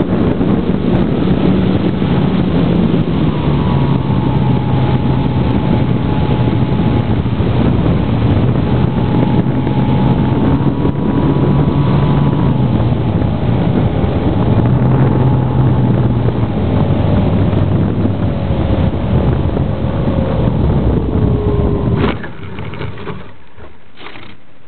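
Brushless electric motor and propeller of a GWS Slow Stick RC plane whining, heard through heavy wind rush on the plane's onboard camera microphone. The motor's pitch wavers and then falls. Near the end the sound cuts off abruptly with a knock as the plane comes down in the grass.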